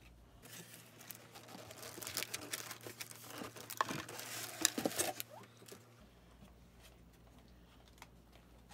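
Cardboard and plastic packaging crinkling and rustling, with scattered small clicks and knocks, as a radio-controlled buggy is pulled out of its shipping box. Loudest around four to five seconds in, it stops after about five and a half seconds.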